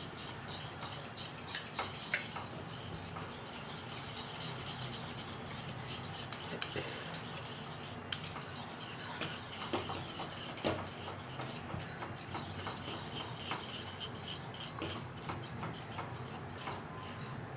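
Flat spoon scraping and stirring thick urad dal kali dough in a pan with sesame oil, a quick continuous rubbing, scraping rhythm of many short strokes.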